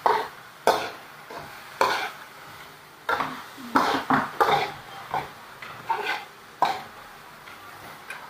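Metal tongs stirring and tossing vegetables in a steel wok, about ten sharp, irregular clacks and scrapes of metal on metal, over a faint steady hiss.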